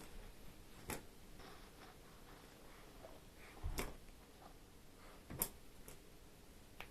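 A few scattered light clicks and knocks, four in all, irregularly spaced, over a quiet background.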